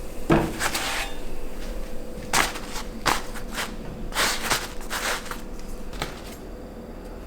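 Kitchen clatter of cookware and utensils: several knocks and short scraping noises while naan is handled on the pan, dying down near the end. A faint steady hum runs underneath.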